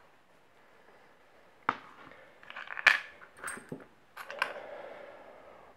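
Small metallic clicks and scrapes from a Yale six-pin half cylinder lock and tools being handled as disassembly begins. A single sharp click comes nearly two seconds in, with the loudest clicks about three seconds in.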